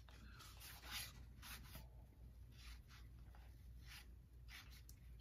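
Faint, irregular swishes of cardboard baseball cards sliding over one another as a freshly opened stack of 1990 Fleer cards is flipped through by hand.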